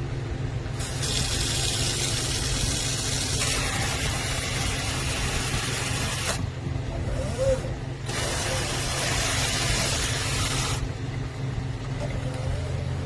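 Pull-down kitchen faucet running water into a sink with a hiss, turned on about a second in, off about six seconds in, then on again for about three seconds. A steady low hum runs underneath.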